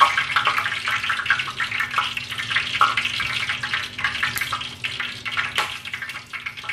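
Cooking oil heating in a nonstick pan on a gas stove, crackling with a dense, irregular patter of small pops and an occasional sharper crack.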